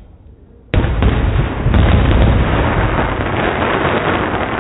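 Aerial firework shell bursting with a sudden loud bang under a second in, followed by dense crackling and rumbling from the burst that goes on and slowly fades.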